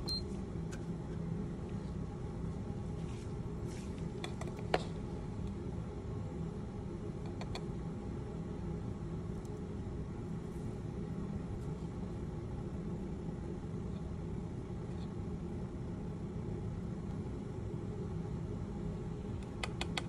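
Steady low mechanical hum, with a few faint clicks and taps of a metal spatula against a plastic weigh boat as powder is spooned onto an analytical balance. The sharpest click comes about five seconds in.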